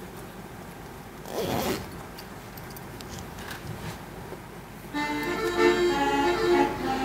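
Planetarium show soundtrack starting over the hall speakers: a brief swish about a second and a half in, then music of long held notes comes in about five seconds in and grows louder.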